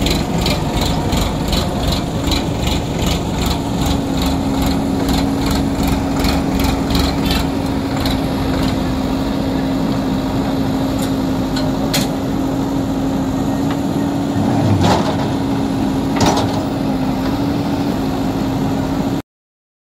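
Diesel engines of a Sonalika tractor and a JCB backhoe loader running steadily with a constant hum, over a fast, even ticking for the first several seconds and a few sharp clicks later on. The sound cuts off abruptly just before the end.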